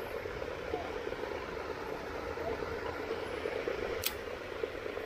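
Steady hiss of rain falling on a pond, with one sharp click about four seconds in.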